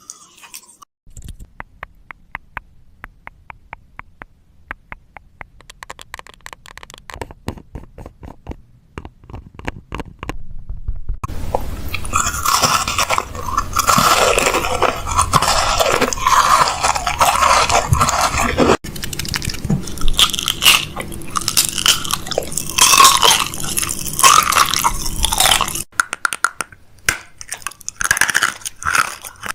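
Close handling of small cardboard boxes and plastic packaging as they are opened: a run of quick taps and clicks, then a long stretch of dense crunching and crinkling that thins out into scattered crackles near the end.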